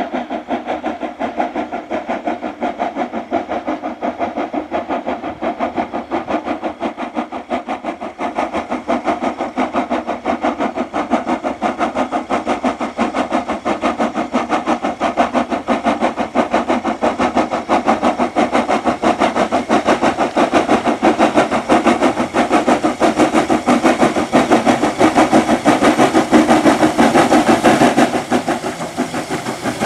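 Southern Railway S15 4-6-0 steam locomotive No. 847 working hard up a gradient with a passenger train, its exhaust beating evenly at about three beats a second and growing louder as it approaches.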